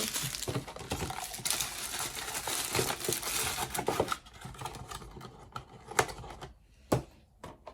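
Packaging crinkling and rustling as it is handled and opened, then a few light clicks and two sharper knocks about six and seven seconds in.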